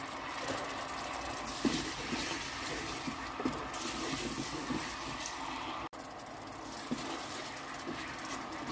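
Thai-style sauce of sautéed shallots and garlic sizzling steadily in a hot electric pot as a wooden spatula stirs it, with a few soft stirring sounds. The sound drops out for a moment about six seconds in.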